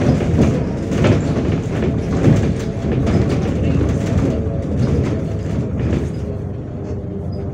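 Inside a moving MAZ 105 articulated city bus: a steady low running rumble of the bus with frequent rattles and clatter from the body and fittings over the road. It eases off slightly near the end.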